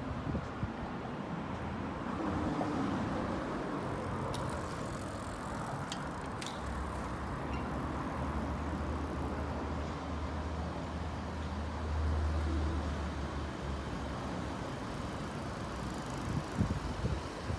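City street traffic: cars running past, with a low engine drone that builds about a third of the way in and fades after the middle. There are a few light clicks.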